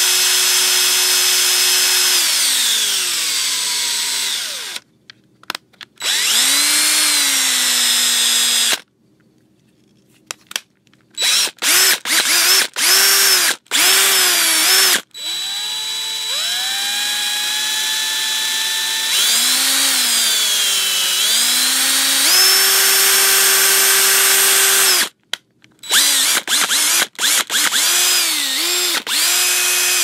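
Power drill motor running in a series of triggers: long whining runs whose pitch climbs as it speeds up and sinks as it slows down, then a quick string of short blips, with brief stops between runs.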